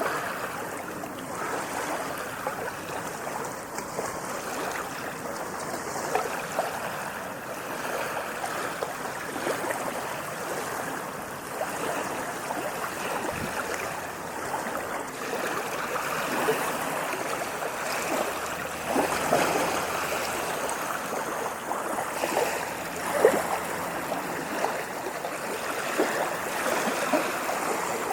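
Moving water splashing and gurgling steadily, with many small splashes and no large surges.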